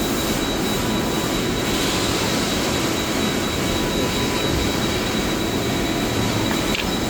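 Steady drone of industrial machinery in a metal shop, with a thin high whine held throughout.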